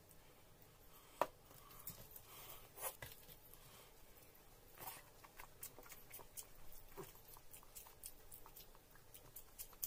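Faint hand-eating sounds: fingers mixing rice and gravy on a plate, with scattered small clicks throughout. A steel bowl is set down with one sharp clink about a second in.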